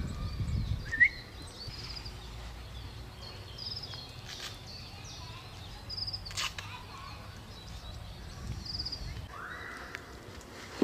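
Birds calling: short high chirps and little trills every couple of seconds, over a low steady rumble, with a bump about a second in and a sharp click about six seconds in.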